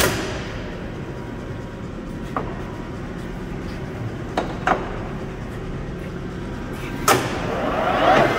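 Clausing Colchester geared-head engine lathe at rest over a low steady background, with several sharp clicks and clunks as the chuck and controls are handled. Near the end the headstock gears spin up with a rising whine as the spindle starts.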